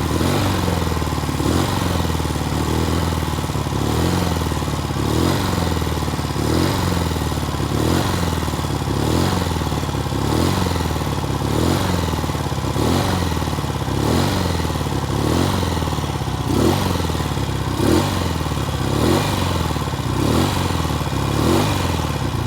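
Norton motorcycle engine running continuously, its sound swelling and falling in a regular pattern about once a second.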